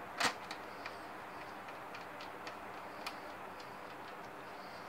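Small clicks and taps of projector parts being handled and fitted back together during reassembly: one sharp click about a quarter second in, then several fainter ticks, over a steady hiss of room noise.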